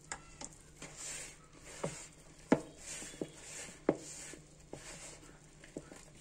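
A hand kneading shaggy flour-and-water dough in a plastic mixing bowl: soft rustling and pressing, with sharp knocks against the bowl roughly once a second.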